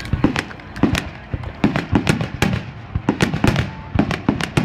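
Aerial firework shells bursting overhead in a rapid, irregular barrage of sharp bangs, roughly three a second.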